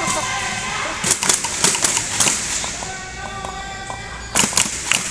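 Indoor badminton hall: a run of sharp smacks, several close together about a second in and two more near the end, over held tones of background music.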